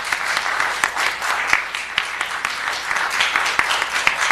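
Audience applauding: many hands clapping in a dense, steady patter of sharp claps.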